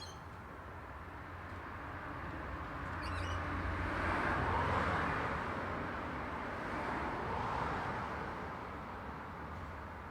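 Road traffic: the tyre and engine noise of a passing vehicle swells and fades about halfway through, with a smaller swell of another passing vehicle later on. A few short, high bird chirps sound near the start.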